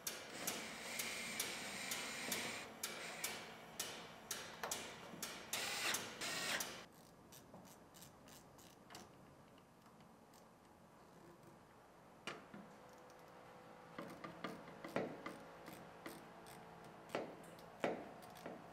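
Clicks and light knocks of hands and tools fitting the plastic fuel-filler bezel into a pickup truck's fuel door opening: a busy run of small clicks for the first seven seconds, then a few scattered clicks, thicker again near the end.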